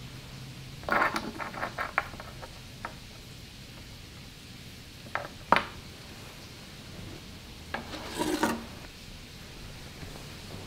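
Small objects being handled on a hard nightstand top: a quick run of clicks and rattles about a second in, two sharp clicks midway, and a longer scraping rub near the end.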